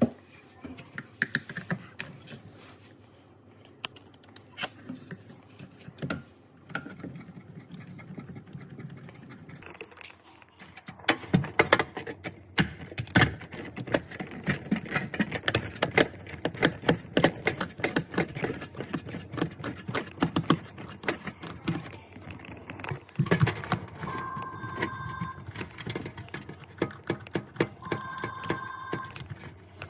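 Rapid irregular metallic clinks and clicks of hands and tools handling dishwasher parts, busier and louder after about ten seconds. Near the end a phone rings twice.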